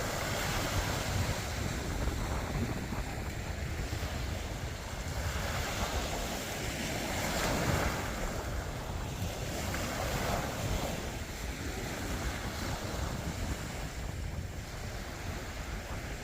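Wind buffeting the microphone outdoors: a steady rushing noise with a heavy low rumble that swells and eases every few seconds.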